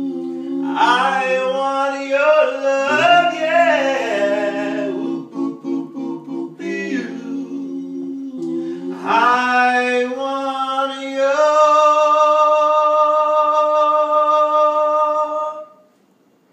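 Men singing a cappella in harmony, several voices at once with no instruments. The song ends on a long held chord that cuts off about a second before the end.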